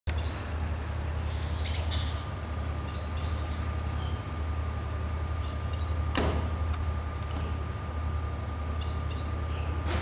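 Great tits cheeping: short, high call notes in quick clusters, repeated every few seconds, over a steady low hum.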